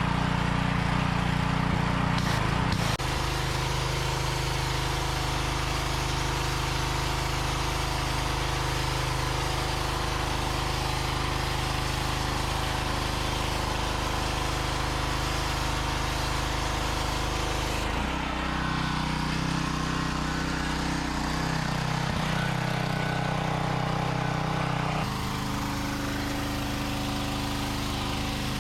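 A Craftsman 2000 psi pressure washer's 148cc four-stroke petrol engine running steadily under load while the spray wand blasts the concrete, with a hiss of spray over the engine. The engine note changes abruptly three times.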